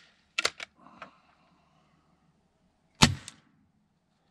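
A .22 SIG Sauer ASP20 gas-piston break-barrel air rifle being cocked and fired: a few clicks as the barrel is broken and closed in the first second. About three seconds in comes a single sharp shot, followed closely by a fainter crack.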